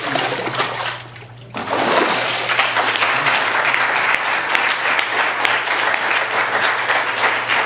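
Water splashing in a baptistery tank as a person is dunked under and lifted back out, then a congregation clapping, starting about a second and a half in and going on steadily.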